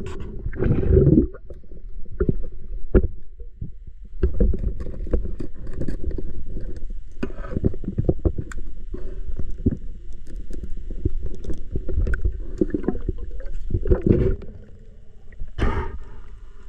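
Water splashing and sloshing with irregular knocks and low rumbling.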